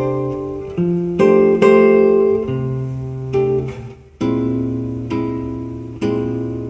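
Recorded music played back through vintage monitor speakers: an instrumental passage of guitar chords, each plucked and left to ring and fade, about one a second, with a brief drop just before four seconds in.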